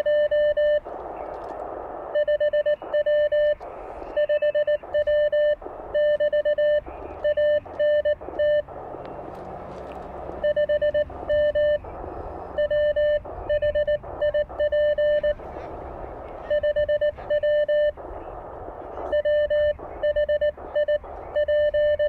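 Morse code from an Elecraft K1 transceiver: a clean, steady mid-pitched tone keyed in dots and dashes from a paddle, spelling out "QRP K1 K1 5W 5W" and "ANT 5M WHIP", with the receiver's band hiss coming back in the pauses between words.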